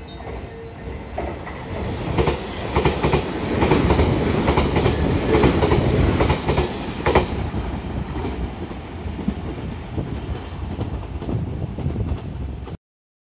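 Kuroshio limited express train passing through the station without stopping: its running noise builds, the wheels clatter over the rail joints as the cars go by, loudest in the middle, then eases off as it leaves. The sound cuts off sharply near the end.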